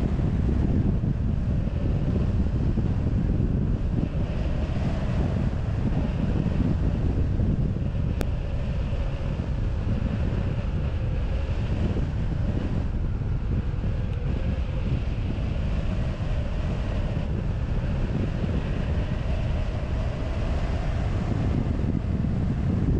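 Steady rush of airflow buffeting the microphone of a wing-mounted camera on a hang glider in flight. There is one brief click about eight seconds in.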